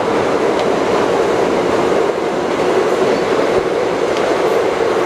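A steady, loud rumbling noise with no rhythm or pitch to it, like machinery or rushing water, unchanging throughout.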